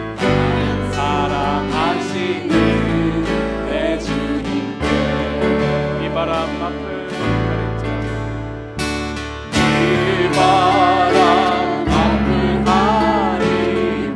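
Korean worship song: a man singing to strummed acoustic guitar with instrumental backing. The singing grows louder about two-thirds of the way through.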